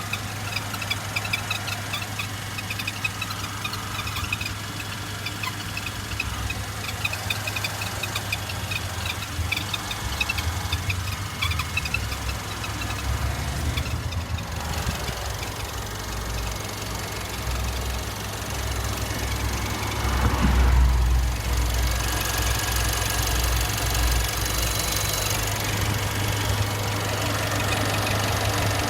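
Mercedes-Benz CLA with a squeak of unknown cause over the steady hum of its engine and running gear. Short, high squeaks repeat quickly through the first half. The low rumble and a hiss grow louder about twenty seconds in.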